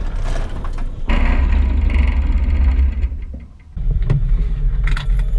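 The aircraft's V8 engine and propeller running on the ground at low power, a steady low rumble. The level drops briefly about three seconds in, then the rumble picks up again.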